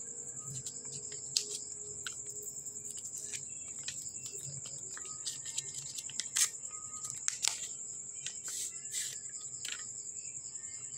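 Packaging being unwrapped by hand: irregular crinkles and sharp crackles, the loudest a little past the middle, as a phone is slid out of its white wrapping. A steady high chirring of crickets runs underneath.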